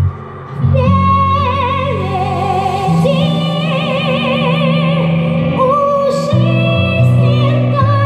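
A boy singing a slow song into a microphone, holding long notes with wide vibrato, over instrumental accompaniment with steady low notes. There is a short pause just after the start before the voice comes back in.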